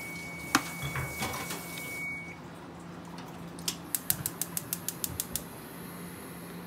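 Gas stove burner's spark igniter ticking rapidly, about a dozen clicks in under two seconds, then the burner catching with a faint steady hiss. A single knock about half a second in.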